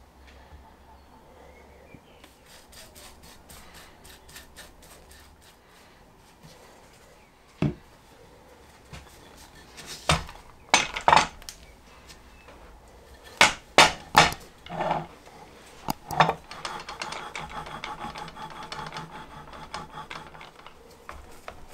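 Wooden boards and metal bar clamps handled on a workbench during a glue-up: a series of sharp wooden knocks and metallic clanks, followed by a few seconds of rubbing.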